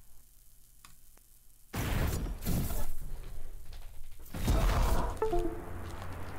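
Cinematic intro of a music video: after a quiet start, a loud rushing, crashing sound-effect swell hits about two seconds in, and a second comes a couple of seconds later. A few slow melody notes follow near the end.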